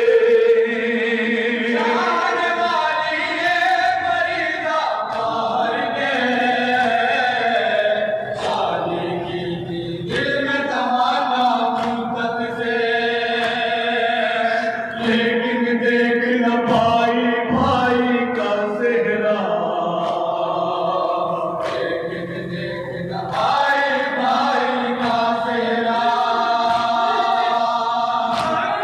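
A noha, a mourning lament, sung without instruments by a group of men in unison through a microphone. It moves in long, repeated melodic phrases.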